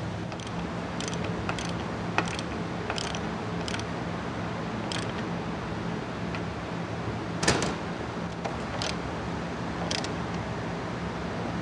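Hand tools working on metal: irregular sharp clicks and clinks over a steady low hum, with one louder clank about seven and a half seconds in.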